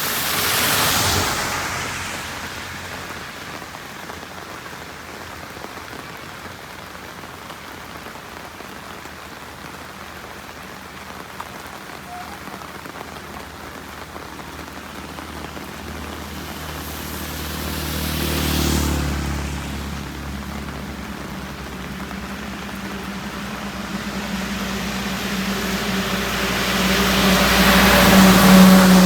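Heavy monsoon rain hissing steadily on a wet highway. Vehicles pass with a rush of tyre spray: one about a second in, another a little past halfway, and a louder one with an engine hum that builds near the end.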